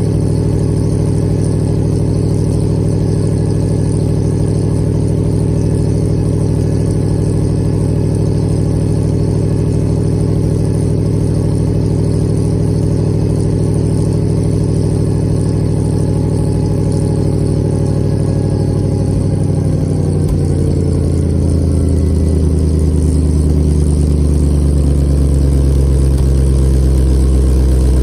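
Rolls-Royce B81 straight-eight petrol engine of an FV432 Mk1 running steadily, heard at its exhaust pipe, after a tune-up that replaced a bent cylinder-2 pushrod and reset the tappet clearances. About two-thirds of the way through, the engine note shifts and grows a little louder.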